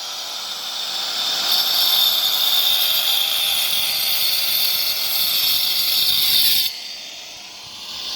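Handheld disc cutter running against a wall crack, a steady hissing whine as the blade cuts open the crack. About seven seconds in it is let off and the whine falls away as the motor winds down, then it starts to rise again at the very end.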